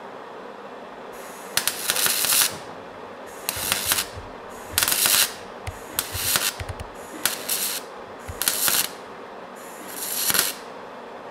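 MIG welder tack-welding a stainless steel exhaust downpipe: the arc crackles and hisses in about seven short bursts of half a second to a second each, with pauses between.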